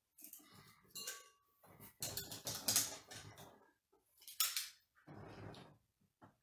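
Handling noise: a folded paper slip drawn from a glass jar is rustled open, with several light clinks and knocks against glass. The sounds come in irregular bursts, the sharpest at about one, two to three and four and a half seconds in.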